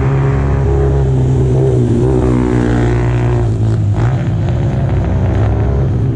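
Mini GP motorcycle engines running on the track, their pitch rising and falling as the riders accelerate and corner.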